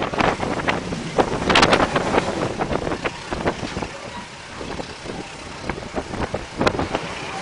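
Argo Parahyangan passenger train running at speed, heard from the vestibule between carriages: the rush of wind on the microphone with irregular clatter and knocks from the wheels and carriage over the track. It is loudest in the first two seconds and quieter in the middle.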